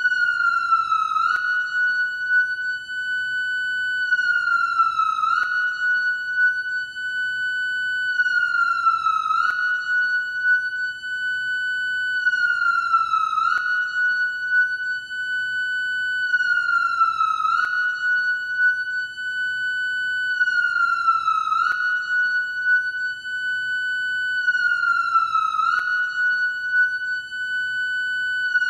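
Japanese police motorcycle siren sounding continuously in a repeating wail: a steady high tone held for about three seconds, then a quick dip in pitch and a glide back up, about every four seconds, with a faint click at each dip.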